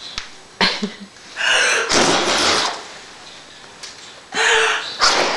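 Three loud, breathy, gasp-like bursts of a voice in play: a short one about half a second in, a longer one around two seconds, and another near the end.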